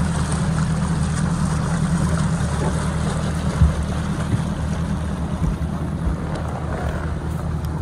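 Bass boat's outboard motor running steadily, with water and wind noise over the hull. A single knock sounds about three and a half seconds in.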